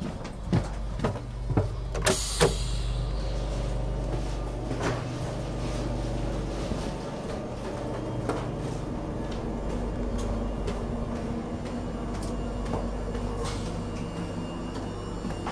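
Steady hum inside a TGV Duplex double-deck carriage. In the first few seconds come several knocks and a brief hiss about two seconds in, as the automatic sliding gangway doors between cars open.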